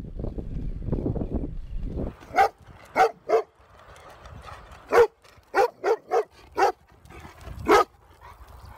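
A dog barking: about nine short, sharp barks in uneven bursts, after a low rumbling noise that stops about two seconds in.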